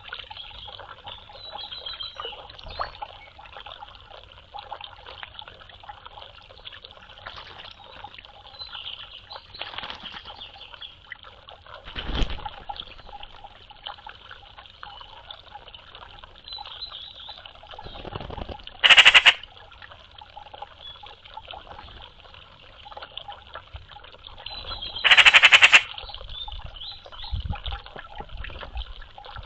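Eurasian magpies giving harsh rattling chatter calls: two loud bursts, one about two-thirds of the way in and a longer one near the end, over faint background chirping.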